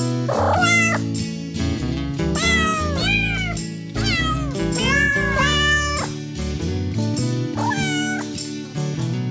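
Domestic cat meowing repeatedly, about six drawn-out meows, over background music with a stepping bass line.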